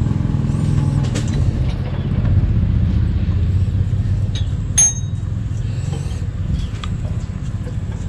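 Steady low rumble with scattered light clicks, and one sharp metallic clink with a brief ring about five seconds in, typical of steel tools or parts knocking together.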